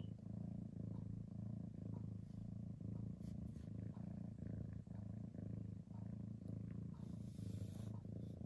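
Domestic cat purring steadily close to the microphone, the low rumble swelling and easing in a regular rhythm. A brief soft rustle comes near the end.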